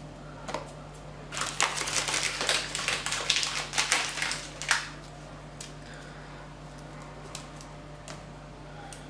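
Oreo cookies snapped and crumbled by hand, crisp crunching and cracking: a dense run of crackles for about three and a half seconds, then a few scattered snaps.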